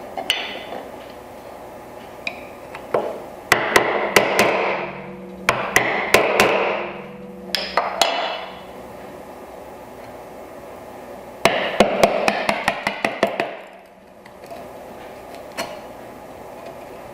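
Mallet driving a chisel to chop the waste out of dovetail sockets in a board, the chopping coming in several runs of rapid strikes with pauses between them.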